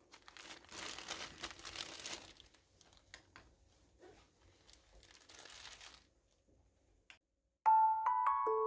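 Plastic zip-top bags crinkling as they are handled, densest in the first two seconds, followed by lighter rustles and a few clicks. Near the end a bright glockenspiel-like chiming tune starts and is the loudest sound.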